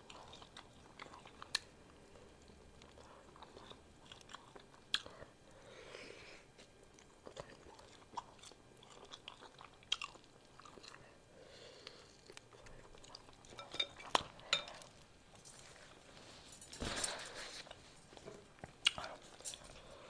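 Quiet close-up chewing and mouth sounds of a person eating beef pho, broken by a few sharp clicks spread across the stretch and a brief louder rustling noise near the end.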